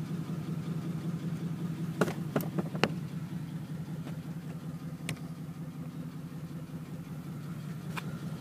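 Steady low hum of an idling car engine, with a few sharp clicks about two seconds in and again near five and eight seconds.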